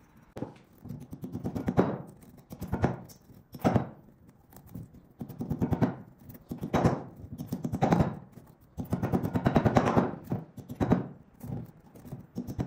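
Short lengths of copper-coated MIG welding wire clinking and rattling against each other and the inside of a square steel tube as they are packed in and jabbed down with a thin steel rod. The sound comes as bursts of rapid metallic clicking, about one a second.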